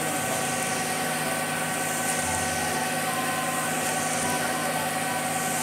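Concrete mixer truck's diesel engine running at a steady pitch, driving the turning drum as it discharges concrete down the chute.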